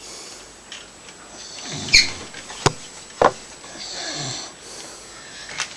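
A man snoring in his sleep: two snores about two seconds apart, with a few sharp clicks between them.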